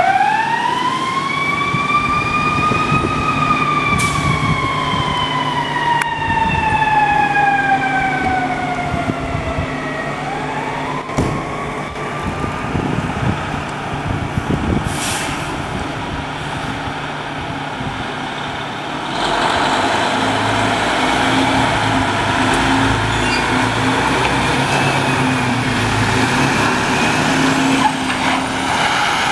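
Fire engine siren wailing: it rises in pitch over about three seconds, falls slowly, rises again about ten seconds in and then fades. Under it a tiller ladder truck's diesel engine runs, and it gets louder about nineteen seconds in as the truck pulls out of the station.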